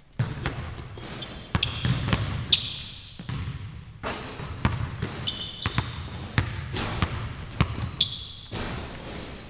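A basketball bouncing on a hardwood gym floor: irregular sharp thuds from dribbling and shooting, with several short high-pitched sneaker squeaks on the court.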